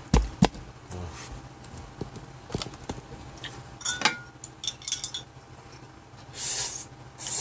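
Eating at a table: a few sharp clicks and knocks of chopsticks and dishes, then a loud slurp of Jjapaghetti noodles about six and a half seconds in.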